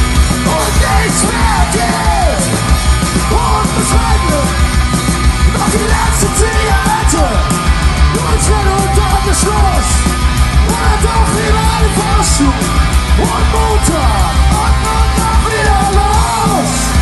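Punk rock band playing live: a singer shouting and singing over guitars, bass and drums, with a heavy low end and steady cymbal hits.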